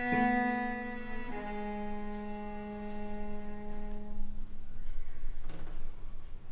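Solo cello bowing slow, sustained notes, moving to a new pitch twice near the start. The low held note fades out a little past the middle, and short, noisy bow strokes follow near the end.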